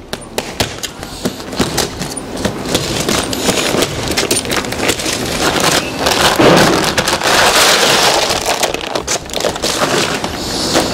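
Plastic wrapping and straps of a compressed used-clothing bale being cut and torn open, a dense crinkling and crackling that grows louder after the first couple of seconds.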